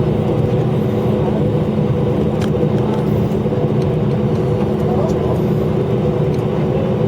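Airliner cabin noise on the ground after landing: a steady engine hum with several held tones over a low rumble, typical of taxiing to the gate.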